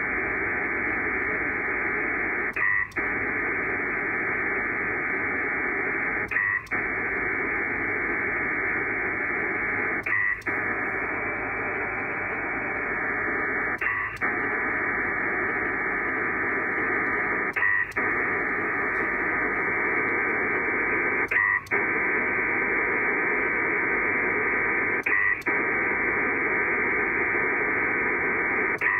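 Pactor 4 data signal from an SCS Dragon modem, heard as radio audio: a steady dense hiss filling an SSB-width band. About every 3.7 seconds it breaks briefly with a short chirp, the link's turnaround for the acknowledgment.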